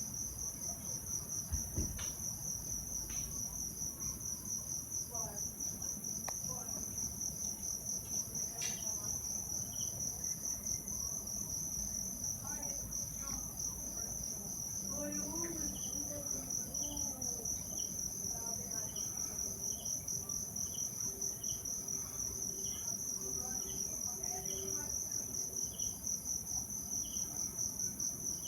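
Insects trilling steadily in a continuous high-pitched, finely pulsing chorus. From about a third of the way in, a fainter second chirp repeats regularly, a little under once a second.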